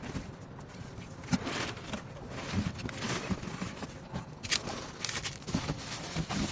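Plastic bags and cardboard packaging rustling and crinkling as they are handled, with scattered light knocks.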